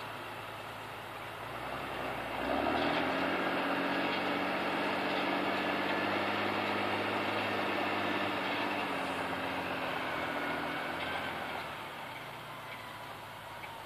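Fiat F130 tractor engine running steadily under load while pulling a combination harrow through ploughed soil. It grows louder about two and a half seconds in, then fades near the end as the tractor moves away.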